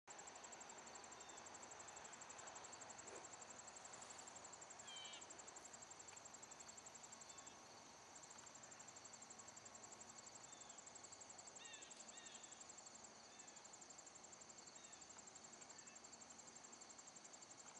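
Faint, steady insect chirring in rapid, even pulses that pause briefly twice, with a few short, high bird chirps about five seconds in and again around twelve seconds.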